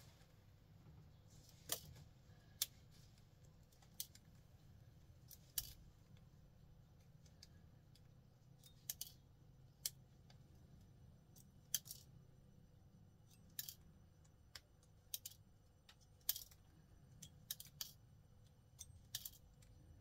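Small pliers clicking as gold pins are pulled one by one from computer cable connectors: sharp, irregular clicks about a second or two apart over a faint low hum.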